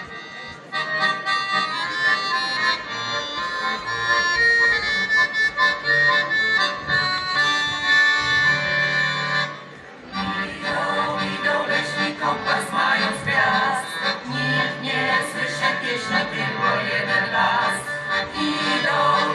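Accordion playing the introduction of a folk song. It breaks off briefly about halfway through, then comes back in fuller.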